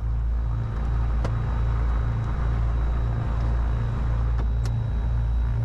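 Cessna 310Q's twin six-cylinder piston engines idling, heard from the cockpit as a steady low drone with a regular throb about two to three times a second. Two faint clicks, about a second in and near the end.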